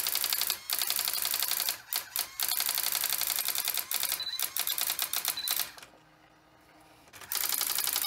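Brother electronic daisy-wheel typewriter printing ASCII art at full speed: a rapid, even stream of type strikes as the carriage moves along the line. It breaks off briefly a few times, then pauses for over a second about six seconds in before striking again.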